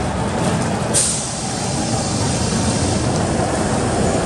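Osaka Metro 66 series subway train at the platform, getting ready to depart: a sudden sharp hiss of released air about a second in, fading into a steady hiss and low rumble.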